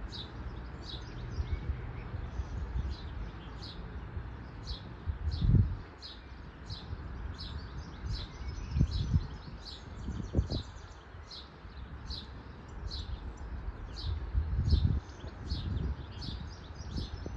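A small bird chirping over and over, about two short high chirps a second, while wind buffets the microphone in low rumbling gusts, strongest about five and ten seconds in.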